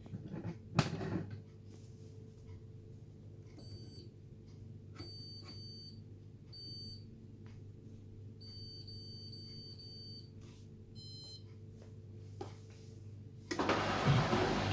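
Hoover Dynamic Next washing machine's control panel beeping as a spin-only programme is set: a click, then a series of short high beeps and one longer beep. About a second before the end the machine starts running with a loud steady hum and rushing noise.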